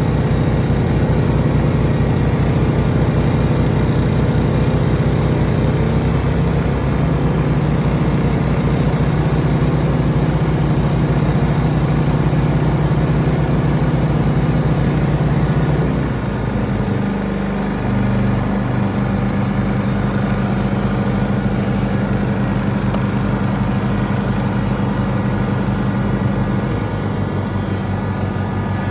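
Two Honda inverter generators running on house natural gas, a steady engine hum that changes speed as the electrical load of a heat gun and space heater changes. The engines shift about 6 s in, drop back near the middle with a brief dip, and settle lower again near the end as they run easier under lighter load.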